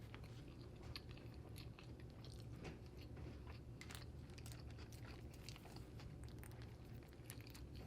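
A person chewing a mouthful of cheeseburger close to the microphone: faint, irregular small wet clicks and smacks of the mouth.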